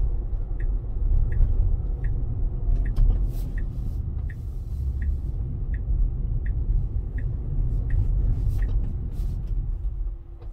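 Road and tyre rumble inside the cabin of a 2022 Tesla Model Y Performance as it drives up and slows, with a turn-signal indicator ticking about every 0.7 seconds. The rumble drops off near the end as the car comes to a stop.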